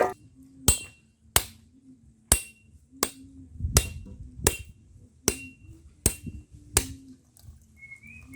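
A knife chopping on a wooden board: about ten sharp chops at a steady pace, roughly one every three-quarters of a second.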